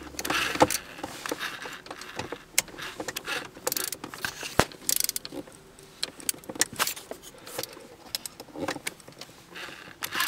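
Irregular clicks, taps and rattles of hands refitting the plastic trim and shifter boot around a Mustang's gear shifter, with one especially sharp click a little past the middle.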